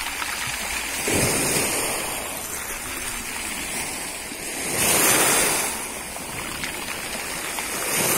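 Small sea waves washing in around people standing in the shallows: a steady rush of water that swells up three times, about a second in, around the middle and near the end.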